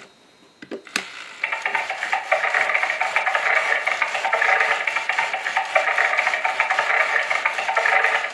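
A click, then a rapid rasping rattle from a talking clock radio's speaker for about seven seconds: the sound effect it plays after its snooze button is pressed, before it gives its yes-or-no answer.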